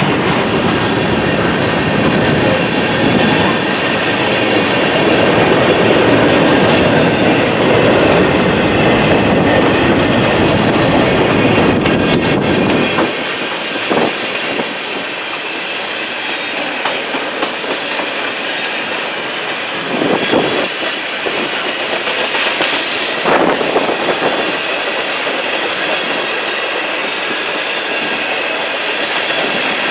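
Freight train cars, covered hoppers and tank cars, rolling steadily past, steel wheels clattering over the rail joints. A heavy low rumble drops away about thirteen seconds in, and a few sharp clanks come after it.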